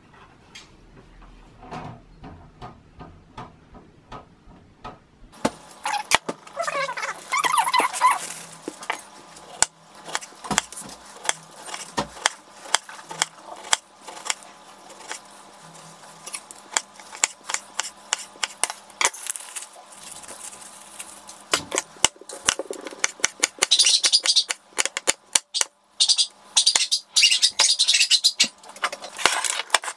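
Kitchen knife slicing tomatoes and red onion on a wooden cutting board: a long run of sharp taps as the blade meets the board, with louder crisp stretches of cutting near the end. The first few seconds are quieter.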